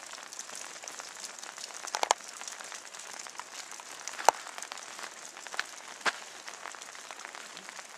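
Rain falling in a steady patter, with scattered close drops ticking and a handful of sharper clicks, the sharpest about four seconds in.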